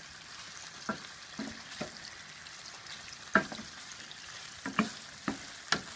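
Pieces of meat and vegetables sizzling in hot oil in a frying pan with a steady hiss, while a wooden spatula knocks and scrapes against the pan as they are turned. The clicks are short and irregular; the sharpest comes about three and a half seconds in.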